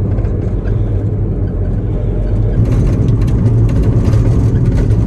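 Steady low rumble of a motor vehicle running along, engine and road noise, with some faint rattling in the second half.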